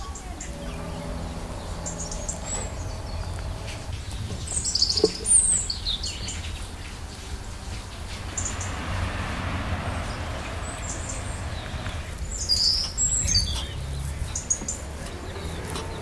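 Small songbirds chirping, short high calls coming every second or two, the loudest about a third of the way in and again near the end, over a steady low rumble.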